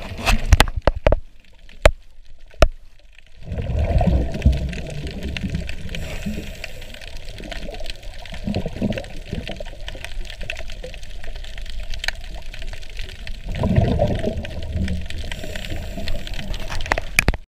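Underwater sound from a diver's camera: scuba exhalation bubbles from the regulator rushing and gurgling in three surges about five seconds apart, over a steady water hiss. A few sharp clicks come in the first three seconds.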